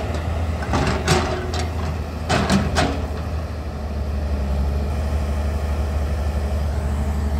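Hyundai 210 crawler excavator's diesel engine running steadily as the machine digs with its bucket in wet soil. A few sharp metallic clanks come about one second and two and a half seconds in, then only the engine drone.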